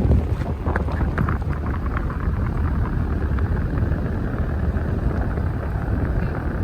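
Daikin inverter ductless mini-split outdoor unit running, with a steady rush of fan air and a low rumble, heard close up.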